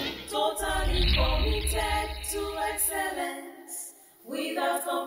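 Intro music of voices singing long held notes over a low bass. It fades almost to silence about four seconds in, then one more sung note comes in near the end.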